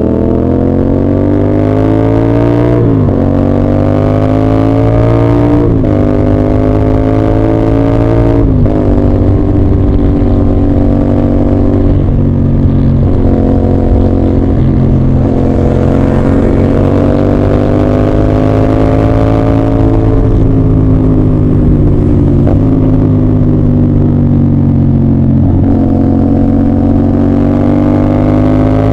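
CF Moto 450SR-S parallel-twin engine and exhaust under acceleration. The revs climb and fall at three quick upshifts in the first nine seconds. It then settles into cruising, with the engine note rising and easing gently with the throttle and a couple of brief lifts off near the end.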